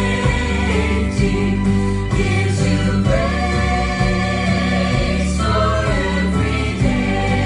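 Gospel song being rehearsed: voices singing over a steady instrumental accompaniment with held bass notes.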